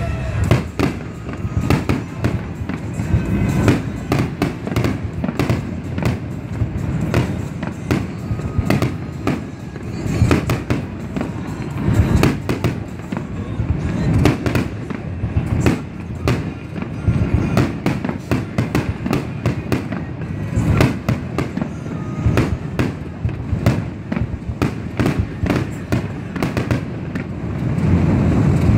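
Fireworks going off in a rapid, continuous barrage of bangs and crackles, many reports a second with no pause.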